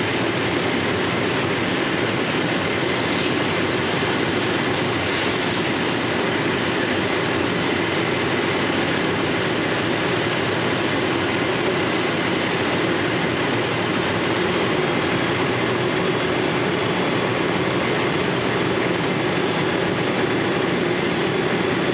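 Fire engine's pump and engine running steadily at pumping speed while a hose line on the floor is charged with water, an even mechanical rumble and hiss that cuts off suddenly near the end.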